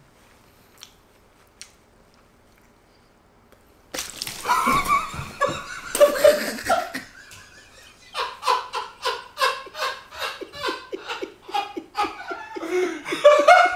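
A sudden loud outburst about four seconds in, then a woman laughing heartily in rapid bursts from about eight seconds in.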